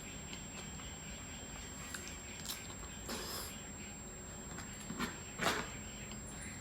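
Person eating gado-gado: a few short, scattered chewing and mouth sounds, the loudest about five and a half seconds in, over a low steady room hum.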